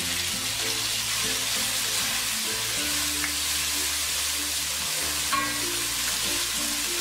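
Chopped onion, carrot, green chilli and ginger sizzling steadily in hot oil in a non-stick frying pan while being stirred with a spoon, with a brief click of the spoon against the pan about five seconds in.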